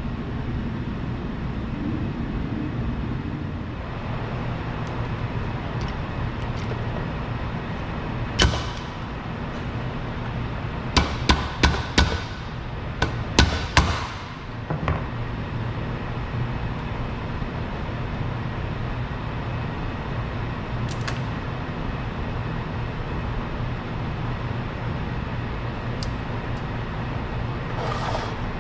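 Valve spring removal on a cast iron small block Chevy cylinder head with a pneumatic valve spring compressor: sharp metallic clicks and clanks, several in quick succession near the middle, over a steady low shop hum.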